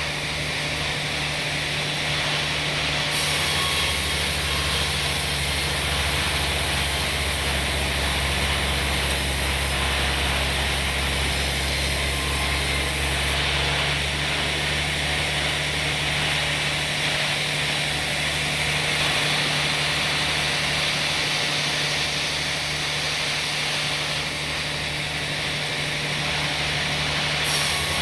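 Sawmill machinery running steadily, a constant low engine hum under an even, hissing saw noise.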